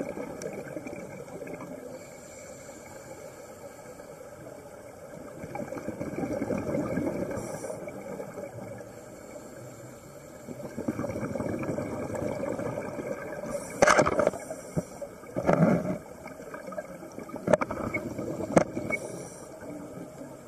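Murky underwater rushing and gurgling with slow swells, broken by several sudden sharp hits in the last third.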